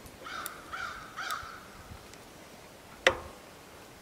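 A crow cawing three times in quick succession, then a single sharp click about three seconds in, the loudest sound here.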